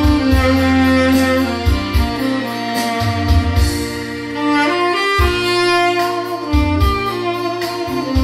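Tenor saxophone with a metal mouthpiece playing a slow melody of held notes, dry with no added effects, over a backing track with a bass line and a drum beat.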